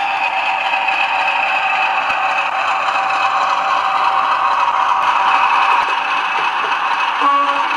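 Model diesel locomotive's DCC sound decoder playing a diesel engine running, through the model's small onboard speaker, with a steady whine over the rattle of the model moving along the track. A short tone sounds near the end.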